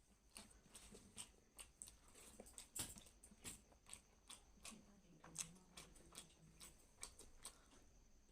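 Close-miked mouth sounds of a person chewing food, with sharp wet smacking clicks about two or three times a second.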